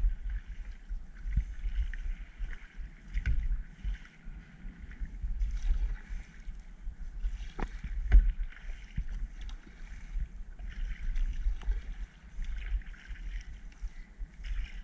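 Kayak paddle strokes splashing in the water, roughly once a second, over a low rumble of wind on the microphone, with two sharp knocks about halfway through.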